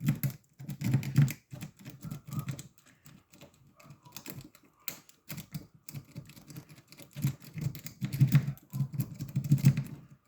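A metal lock pick working the pins in the core of an old padlock, making rapid, irregular clicking and rattling in clusters that come and go; the lock opens just afterwards.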